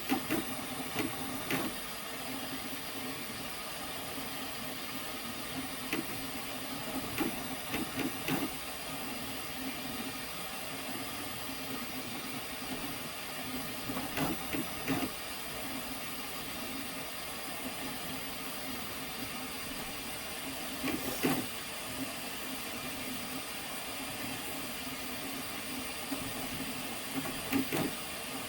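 Flashforge Adventurer 5M 3D printer running mid-print: a steady fan and motor hum, with a few short clusters of clicks at irregular times.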